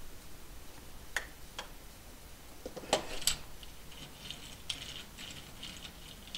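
Small hard clicks and taps of a die-cast toy car and tools being handled on a cutting mat, a few sharp ones between about one and three seconds in, then soft light ticking as the car is pushed along the mat on its wheels.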